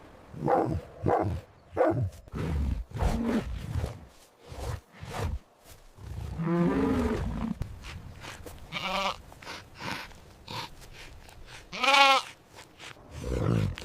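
Recorded farm-animal calls: a quick run of short, low grunts, then several bleats with a quavering pitch, the loudest about twelve seconds in.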